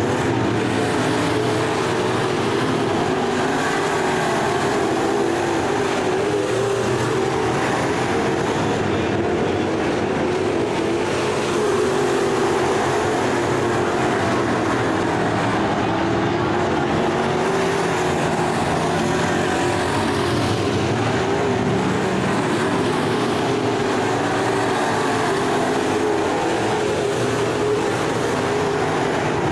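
IMCA Sport Mod dirt-track race cars running at racing speed, several engines at once, their pitch wavering up and down continuously.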